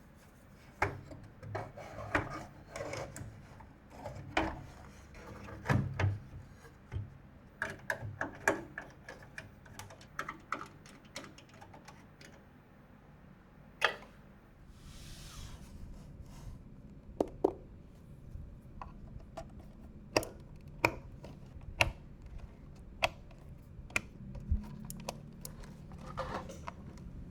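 Hands handling PC parts: irregular sharp clicks and taps with stretches of rubbing, and a short hissy rustle about halfway through.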